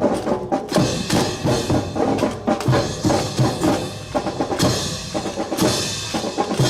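Music with prominent drums keeping a steady beat, with sharp clicks.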